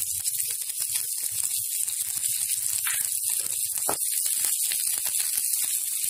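Chopped ginger, garlic and onion sizzling in hot oil in a kadai, a steady hiss, while a wooden spatula stirs them, scraping and tapping against the pan.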